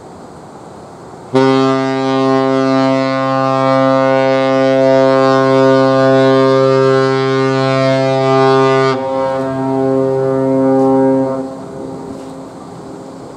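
Ship's whistle of the JMSDF helicopter destroyer Izumo sounding a whistle signal: one long, low-pitched blast of about ten seconds that starts abruptly and thins out in tone a couple of seconds before it stops.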